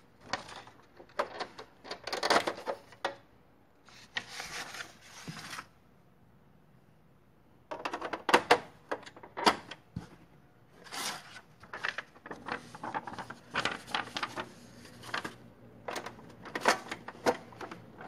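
Brother ML-100 electronic daisy-wheel typewriter printing as it is typed on: runs of rapid, sharp striking clicks, broken by a pause of about two seconds near the middle.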